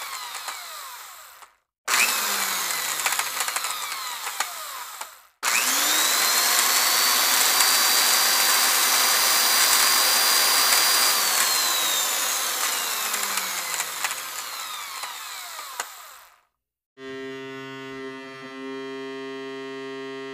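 High-speed electric power-tool motor whining in three hard-cut takes, each slowing down with a falling pitch. In the longest take, starting about five seconds in, it spins up to a steady high whine for several seconds and then winds down. Near the end it gives way to a steady, even multi-tone hum.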